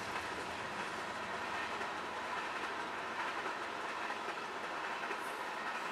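Freight train of tank cars rolling past over a grade crossing: a steady noise of steel wheels running on the rails.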